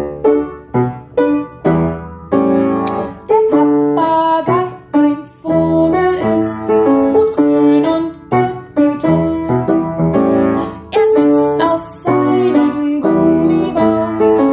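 Piano or keyboard playing a lively children's song, a quick run of separate notes with chords beneath.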